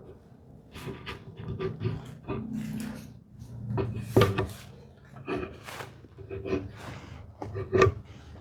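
Wooden workpieces being handled and set against each other during assembly: a string of irregular knocks and scrapes, with two sharper wooden knocks about four seconds in and near the end.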